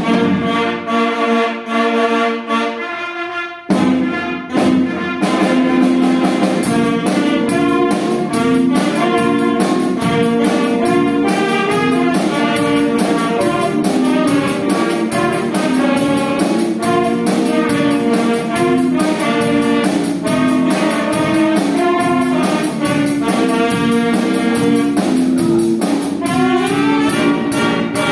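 Live performance by a children's saxophone ensemble with keyboard, bass guitar and drum kit, playing jazz-style music. The opening seconds are sustained saxophone chords; about four seconds in, the drums and full band come in with a steady beat.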